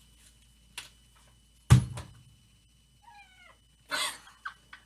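A house cat meows once, a short bending call about three seconds in. A loud thump comes a little before it, about halfway through.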